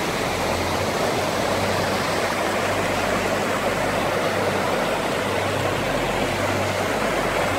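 Snowmelt mountain stream rushing hard over rocks in a steady, unbroken noise.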